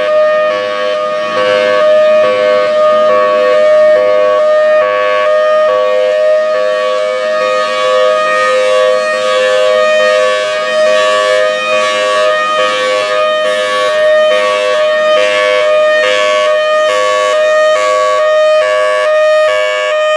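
Federal Signal Thunderbolt 1003 tornado siren sounding its Hi-Lo signal, alternating steadily between a high tone and a low tone. It is loud throughout, and the two-tone swapping becomes more distinct after the first several seconds.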